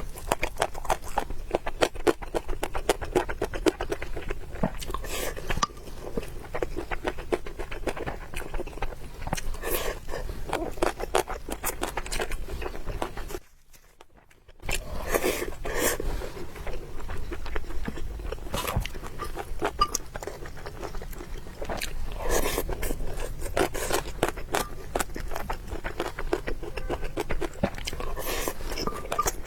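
Close-miked eating sounds: rapid wet chewing and mouth smacking, with a brief silent break about halfway through.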